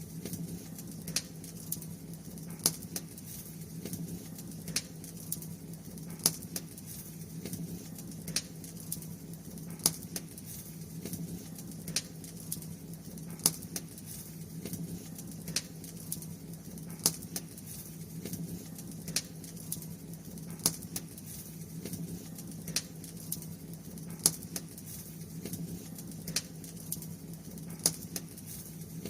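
Bonfire crackling: sharp pops about once a second over a steady low rumble.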